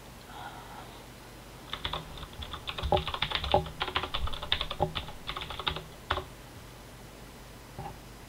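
Computer keyboard typing: a quick run of keystrokes lasting about four seconds, entering a shell command, followed by one faint keypress near the end.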